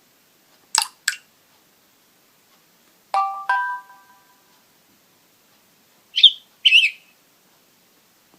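Short built-in alert tones of a Samsung Galaxy J1 Ace played through its speaker one after another, with silence between them. First comes a quick double click-chirp, then a two-note chime, then a twittering bird-like double chirp.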